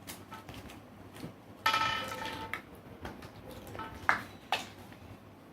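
Hands handling a phone box's packaging and small accessories: light clicks and rustles, a pitched squeak lasting about a second starting just under two seconds in, then two sharp clicks close together near the end.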